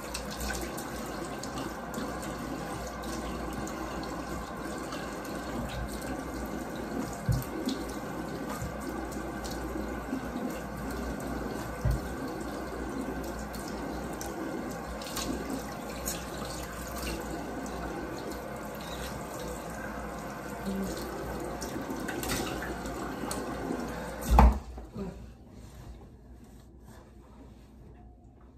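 Bathroom sink tap running while water is splashed on the face to rinse off a face mask, with a few knocks along the way. A loud thump comes about 24 seconds in, and the running water stops just after it.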